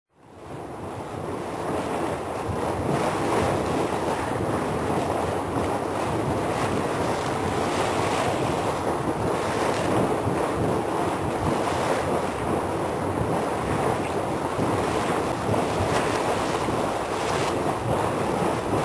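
A steady rushing noise, like wind or distant surf, that fades in over the first couple of seconds and then holds level.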